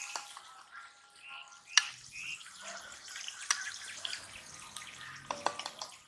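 Scattered clicks and light knocks of a spoon against a plastic spice jar as powder is shaken out over a pan, with one sharp knock about two seconds in.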